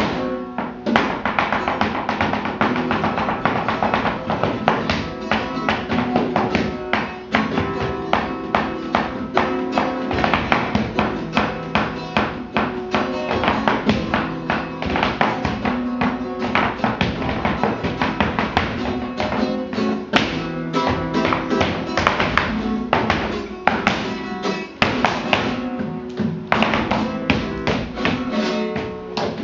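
Flamenco guitar music in the tientos style, with a dancer's heeled shoes striking the floor in rapid footwork taps throughout.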